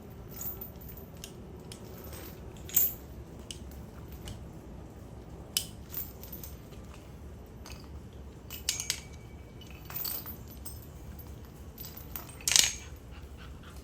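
Metal kennel gate and latch clinking and knocking, a few separate strikes with the loudest near the end.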